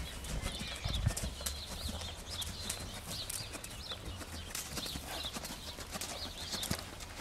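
Hoofbeats of a tall black mare moving around a sand round pen under a rider, a run of soft, repeated footfalls.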